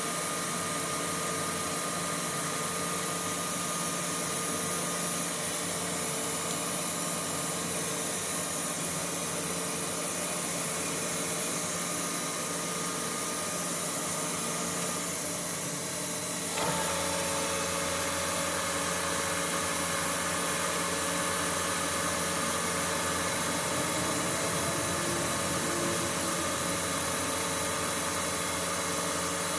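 Metalworking machine tool running steadily with an electric motor's hum and several steady tones; about sixteen seconds in the sound changes abruptly to a deeper hum with different tones, as of a speed change or a new operation.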